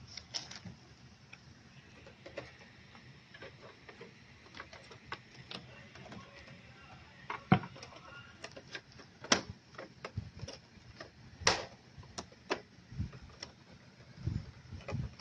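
Scattered clicks and knocks from handling a projector's circuit board and working its wire connectors loose inside the opened chassis. A few sharp clicks come in the middle, and duller low knocks come near the end.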